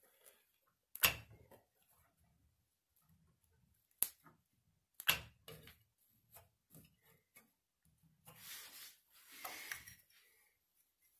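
Scattered sharp clicks and knocks of hands working metal parts at a Moen 1225 shower valve's cartridge stem, the loudest about a second in and again about five seconds in. Near the end comes a brief rushing hiss lasting about two seconds.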